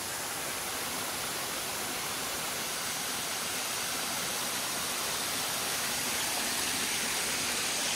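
Small waterfall spilling in several thin streams over a rock face: a steady rush of falling water.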